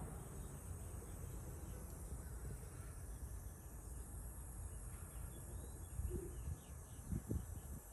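Faint background with a few faint distant bird chirps, and several soft knocks near the end.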